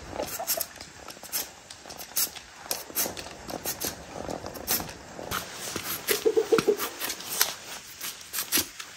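Hand vegetable peeler scraping the skin off a cassava root in quick, irregular strokes. A short pulsed animal call comes in about six seconds in.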